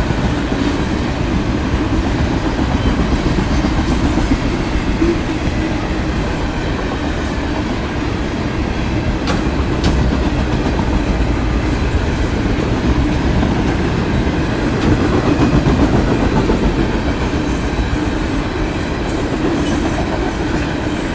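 CSX Tropicana juice train's insulated boxcars rolling past at close range: a steady, unbroken noise of steel wheels running on the rails.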